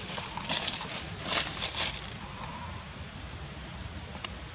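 Dry rustling and crackling in several short bursts during the first two seconds, over a steady low rumble, then quieter.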